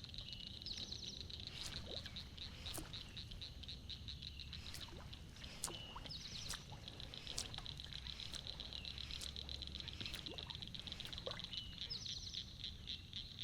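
Frogs calling in a chorus around the lake: a faint, steady, fast high trill with a few scattered clicks and short higher calls.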